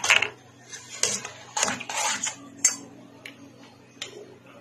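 Steel ladle scraping and clinking against a steel saucepan as a thick mango custard mixture is stirred, in a series of short bursts.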